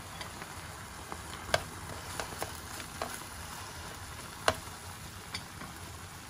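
Chicken pieces sizzling in olive oil and butter in an enamel roasting tin, with a few sharp clicks of tongs against the tin as they are stirred; the loudest click comes about four and a half seconds in.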